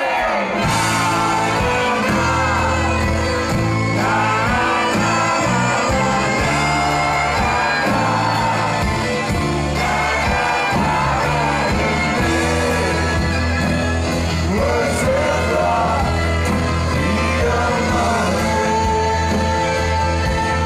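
Live band playing a song with singing, over a steady bass line, recorded from among the audience.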